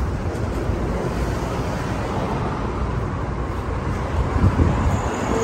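Steady background rumble of road traffic.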